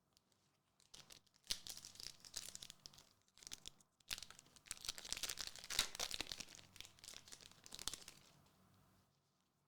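Foil trading-card booster pack being torn open and crinkled by hand, in two spells of crackling rustle: a shorter one about a second in and a longer one from about four seconds in.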